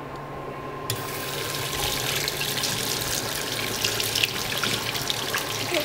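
Bathroom sink tap turned on about a second in, water running and splashing over a hand and into the basin.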